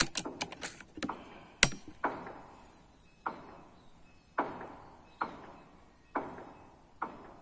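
An air rifle shot right at the start, with quick sharp clicks as the pellet strikes the spinning metal target. Then comes one more sharp click and a series of softer knocks, each fading out, about one a second.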